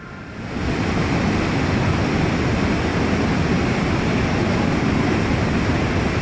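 A steady rushing noise that builds up over the first half-second, holds level, and cuts off suddenly at the end.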